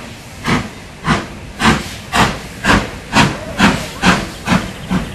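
Steam locomotive exhaust chuffing, the LNER B1 4-6-0 'Mayflower' working under steam: a regular series of strong beats, about two a second, quickening slightly as it gathers speed, over a steady hiss of steam.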